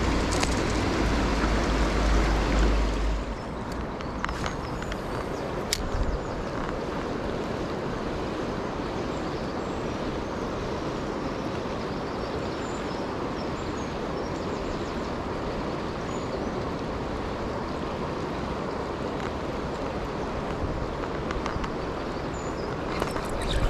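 Steady rush of water pouring over a river weir, with a deep low rumble in the first three seconds and a few faint clicks about four to six seconds in.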